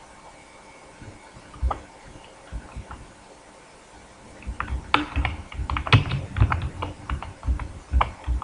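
Typing on a computer keyboard: a few scattered keystrokes, then a quick, steady run of keystrokes from about halfway through.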